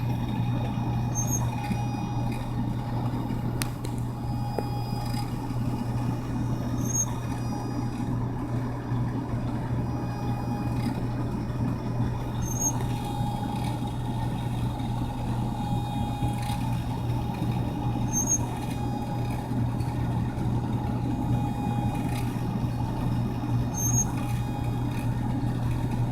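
A brief high-pitched squeak repeating at a regular interval, about every six seconds and five times in all, over a vehicle's steady running drone.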